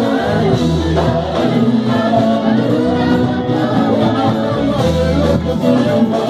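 Live church band playing upbeat worship music on keyboard and drums, with a voice singing over it.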